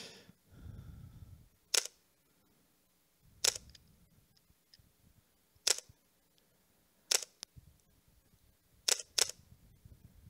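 Recorded camera shutter clicks played back one at a time: about seven sharp single clicks, one every one to two seconds, with two of them coming in quick pairs.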